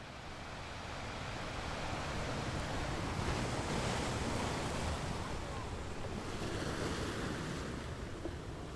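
Sea surf washing up a sandy beach, waves breaking and foaming in slow surges, fading in over the first couple of seconds. Wind buffets the microphone with a low rumble.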